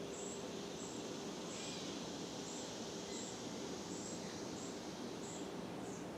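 First-generation Fasco Charleston drop-flywheel ceiling fan running steadily on medium speed: a steady motor hum with air noise. Short high chirps repeat about every two-thirds of a second.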